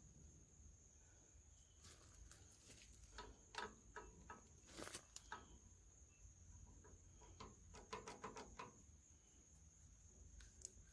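Faint scattered clicks and light taps of hands working the governor parts at the flywheel hub of an International Type M 6 hp engine, as the governor linkage is taken apart. A steady thin high tone runs underneath.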